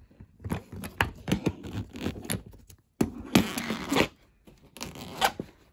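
Hands working the metal zipper pulls and combination lock of a hard-shell suitcase: small clicks and scrapes, with a louder rasping stretch about three seconds in.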